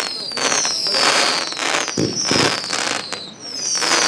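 Fireworks display: dense crackling with a string of whistles, each falling in pitch, about one a second, and a pair of heavier bangs about two seconds in.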